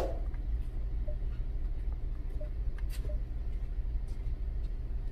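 Jeep Cherokee engine idling, a steady low rumble heard inside the cabin, with a sharp click right at the start and a few faint chirps and ticks.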